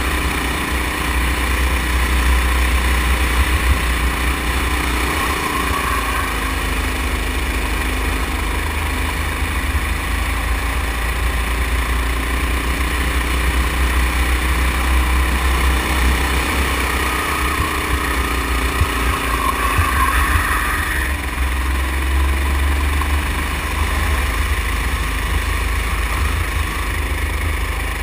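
Go-kart engine running under throttle, its pitch rising and falling a few times as the kart goes through the corners, over a heavy low rumble.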